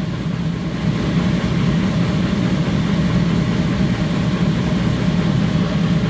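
Loud, steady, low mechanical drone of warehouse background noise.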